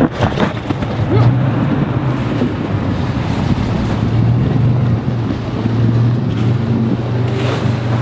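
Toyota four-wheel-drive pickup's engine running steadily under load as it climbs out of deep snow on MaxTrax recovery boards, a continuous drone with a noisy haze over it.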